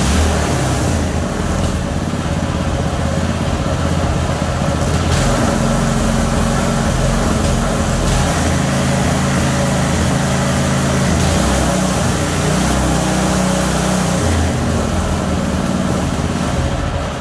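Small 6.5 hp engine of a home-built horizontal longtail boat motor running while the newly fitted throttle is tested, its revs rising and falling several times. The engine dies away at the very end.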